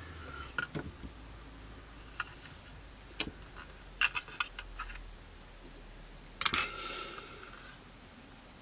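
Light clicks and taps of a plastic model-kit fuselage and modelling tools being handled, with a brief louder rubbing noise about six and a half seconds in as the plastic fuselage halves are worked together.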